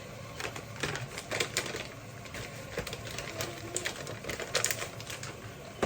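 Irregular clicks and taps of kitchen cooking work, like utensils knocking against a pot and pan, coming in quick uneven runs.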